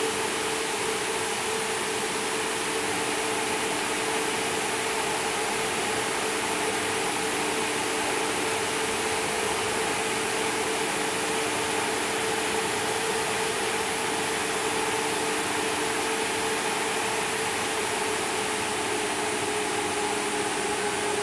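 Heat recovery ventilator's two centrifugal fans running steadily, a rush of air with a steady hum. The unit keeps running after its controller is switched off: the run-on that cools its electric heater before shutdown.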